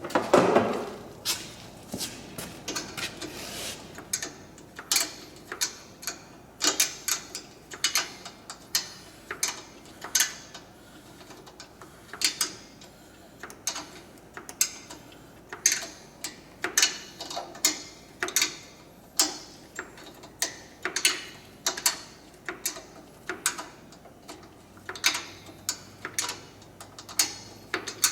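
A ratchet wrench clicking in short runs while bolts on the A/C condenser lines are tightened, with a loud clank about half a second in.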